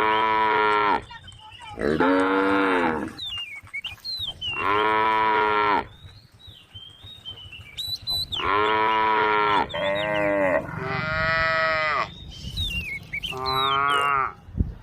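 Cattle mooing over and over, about seven separate calls of roughly a second each, with high chirping between the calls.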